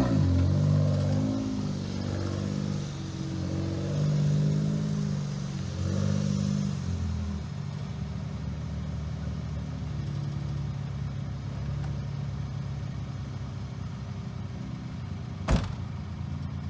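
Suzuki Jimny JB23's 660 cc three-cylinder engine driving, its pitch rising and falling for the first several seconds, then settling into a steady drone. A single sharp click comes near the end.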